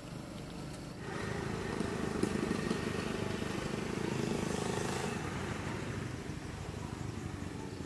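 A motor vehicle passing by: its engine and road noise swell about a second in, are loudest midway, then fade.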